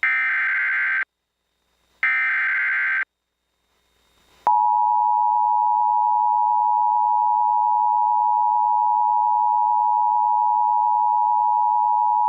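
Emergency Alert System broadcast tones. First come two one-second bursts of SAME header data, a harsh electronic warble, a second apart. Then, about four and a half seconds in, the steady two-tone EAS attention signal starts and holds for about eight seconds. This is the signal that an alert is coming, here a National Weather Service severe thunderstorm warning.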